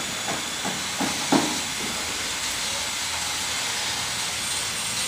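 Steady hiss of air from a telescopic mast being raised pneumatically, with a few light knocks, the loudest about a second and a half in.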